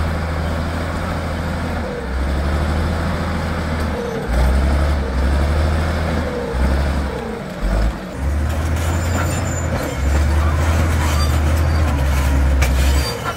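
Shantui crawler bulldozer's diesel engine working under load as the blade pushes rock and soil, its low drone swelling and easing every second or two.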